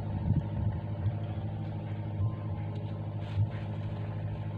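A motor engine droning steadily at an even speed, with a few soft knocks partway through.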